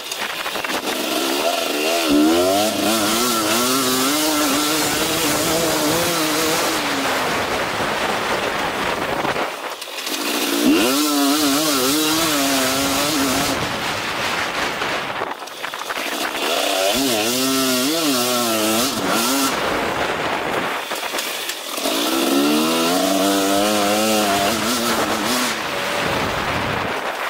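2023 KTM 250 SX-F four-stroke single-cylinder motocross engine, ridden hard. The revs climb and fall repeatedly through gear changes and corners. The rider briefly shuts the throttle three times, about a third of the way in, around the middle, and about three-quarters through.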